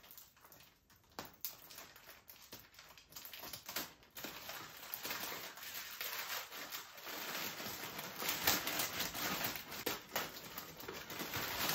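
Scissors snipping through a large plastic poly mailer bag: sparse sharp clicks at first, then, from about four seconds in, denser and louder crinkling and rustling of the plastic as the bag is cut along and pulled open.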